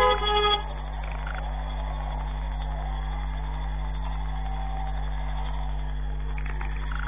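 A vehicle horn sounds briefly in the first half second. It is followed by a steady electrical hum and faint background traffic, heard through a CCTV camera's microphone.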